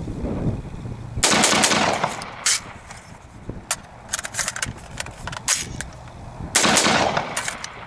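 Springfield Saint 5.56 AR-15 rifle firing a quick string of shots about a second in. Metallic clicks of an empty magazine being dropped and a fresh one seated follow, then a couple more quick shots near the end.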